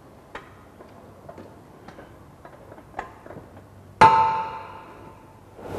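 Sheet metal being worked on a manual bending machine: faint light metallic ticks and taps, then about four seconds in a single sharp metal clang that rings on for about a second.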